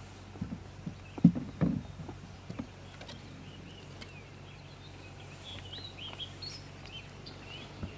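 A few knocks and clunks from a fishing rod and baitcasting reel being handled and set into a boat-mounted rod holder, the loudest just after a second in, over a low steady hum. Birds chirp in the background.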